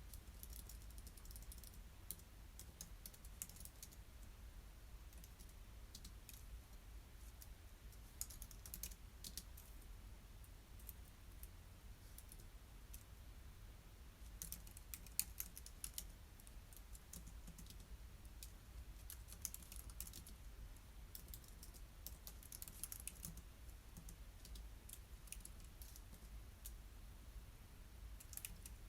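Faint computer keyboard typing: runs of quick keystrokes broken by short pauses.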